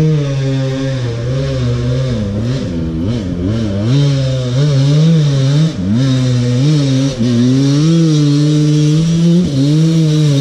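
Two-stroke Husqvarna dirt bike engine running close by, its pitch wavering up and down with small throttle changes.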